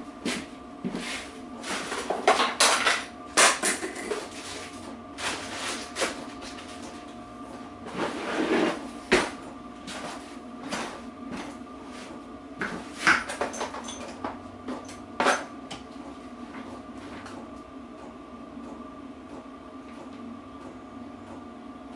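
Metal tools and parts clattering and knocking irregularly as someone handles and sorts through them in a workshop, over a steady background hum. The clatter thins out after about 16 seconds.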